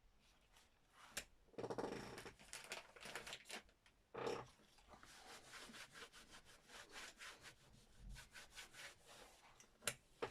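Oil pastel rubbed back and forth on paper: a quick, faint run of short scratchy strokes, with a sharp click about a second in and another near the end.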